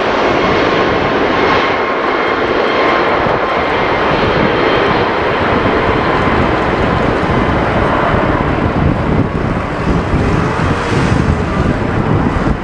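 Jet engines of an Azerbaijan Airlines Airbus A340 running at high power on the runway: a loud, steady engine noise with faint high whines through it, easing slightly near the end.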